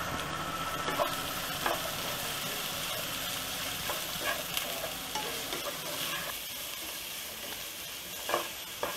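Shredded cabbage, carrot, beans and peas sizzling as they stir-fry in a pan over high flame, with a wooden spatula stirring and scraping through them and a few short knocks of the spatula against the pan.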